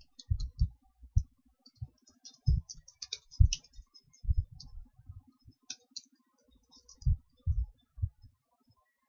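Computer keyboard typing and mouse clicks: irregular short keystrokes, each a sharp tick with a low thud, in quick runs and single presses while PHP code is entered.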